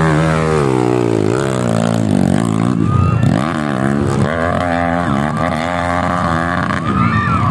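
Dirt bike engine revving hard up and down on a hill climb, its pitch rising and falling about once a second over a steady low drone.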